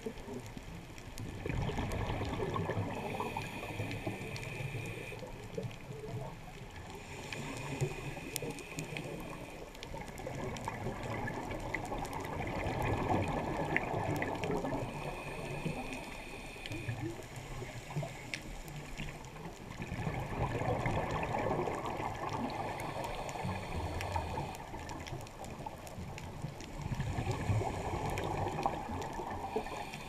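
Scuba diver breathing underwater through a regulator: repeated rushes of exhaled bubbles several seconds apart, with a faint hissing inhale between them.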